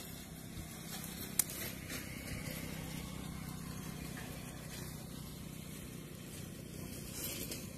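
Leafy stems rustling as a hand pushes a branch into wet mud beside a hole, over a steady low background hum, with one sharp click about a second and a half in.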